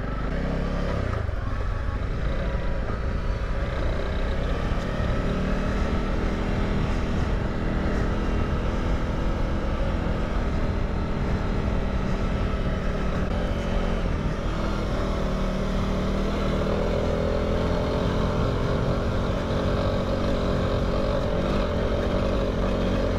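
Honda CRF300 Rally's single-cylinder four-stroke engine running steadily as the motorcycle rides slowly along a dirt track. Its note firms slightly about two-thirds of the way through.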